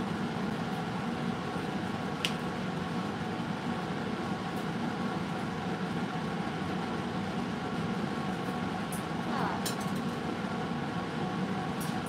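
Steady mechanical hum of a room appliance such as a fan, with a single sharp click about two seconds in.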